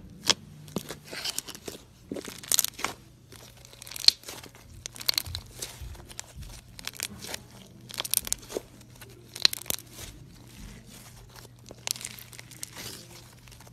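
Thick pale blue slime squeezed by hand in a plastic tub and then pulled and stretched, giving irregular sticky crackles and pops in uneven clusters.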